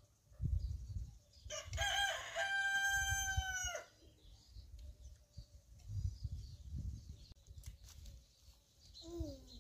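A rooster crowing once, about a second and a half in: a few short rising notes run into a long held note that drops off at the end.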